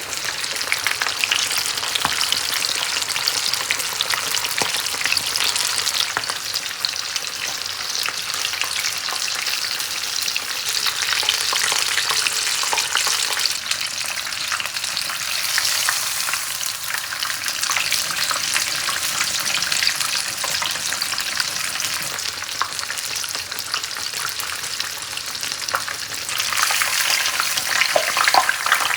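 Battered chicken pieces deep-frying in hot oil: a dense, steady sizzle full of small crackles, growing louder near the end.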